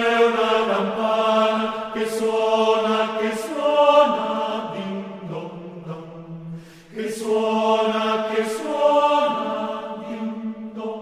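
Choir singing a slow hymn in long held chords that change every second or two, with a brief breath pause about seven seconds in, echoing in a large church.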